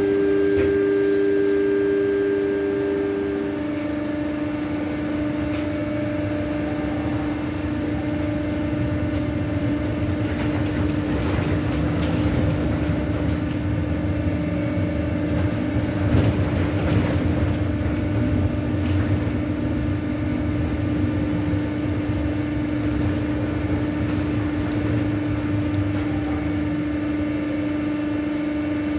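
Cabin sound of a MAZ 303.E10 electric bus moving off from a stop and driving on: a steady electric hum, with two higher tones dropping out about three and a half seconds in and road and tyre rumble building as it picks up speed.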